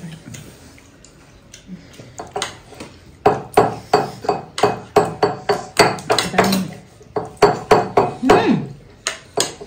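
Eating sounds at a meal table: after a quiet start, a steady run of sharp clicks and clinks, about three a second, from around three seconds in until near the end.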